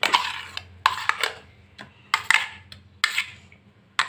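A spoon scraping and knocking against the inside of a steel mixer-grinder jar, working thick urad dal batter out of it. There are about five short separate strokes.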